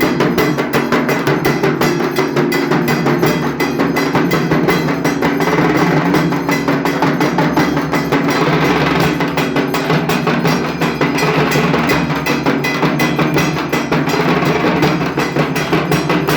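Dhak, the barrel-shaped Bengali drum beaten with sticks, played in a fast, continuous rhythm of dense, rapid strokes without a break.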